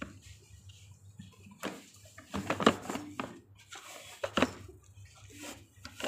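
Plastic and metal clicks and knocks from a baby stroller's frame joints and latches being handled. They come as a handful of separate sharp taps, the loudest cluster about two and a half seconds in.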